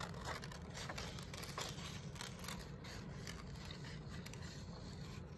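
Scissors cutting around a shape in drawing paper: a run of short, faint snips.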